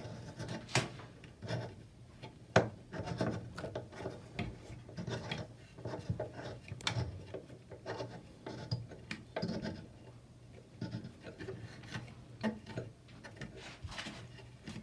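A bidet hose connector being screwed in by hand, with irregular clicks and rubbing scrapes as the parts are turned and handled.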